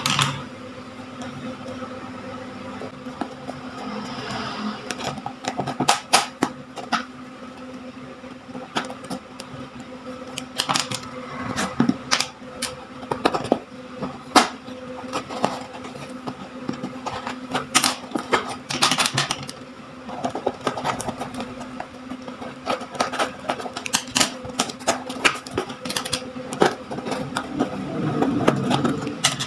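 A small cardboard parcel being cut open, first with a knife along the packing tape and later with scissors through the tape and a cardboard flap. The cutting gives scraping, tearing and many sharp crackles and clicks at irregular intervals.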